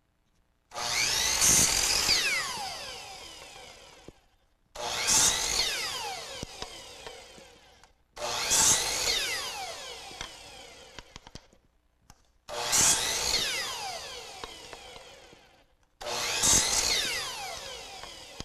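Power chop saw (miter saw) making five cuts through small wooden segments for a segmented bowl ring, about one every four seconds. Each starts suddenly as the motor comes up and the blade bites through the wood, then the blade whines down, falling in pitch, after the trigger is released.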